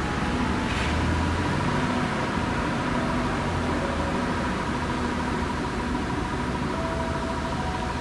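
Strong squall wind with gusts of about 12–15 m/s: a steady rush of air through the trees with low buffeting on the microphone.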